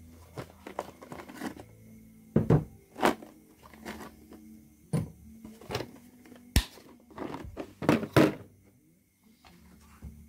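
A series of irregular knocks and clunks of hard objects being handled and set down, several louder ones in the middle and near the end, with one sharp click a little past halfway.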